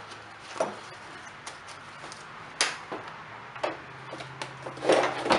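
Scattered clicks and knocks, about one a second with a quick cluster near the end, from a backpack leaf blower's plastic backing plate and harness straps being handled on a workbench, over a faint steady low hum.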